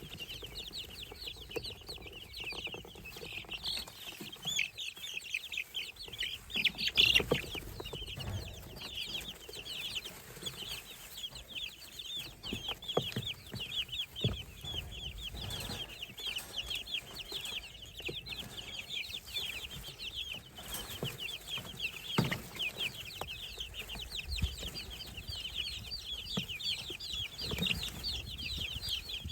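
A brood of baby poultry (chicks, guinea keets and ducklings) peeping continuously, many short high peeps overlapping. A few soft knocks come in between, the loudest about seven seconds in.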